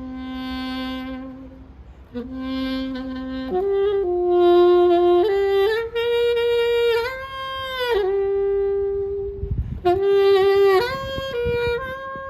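Saxophone playing a slow melody of long held notes that step upward in pitch, one note bending down about two thirds of the way through. Low rumbles come in near the end.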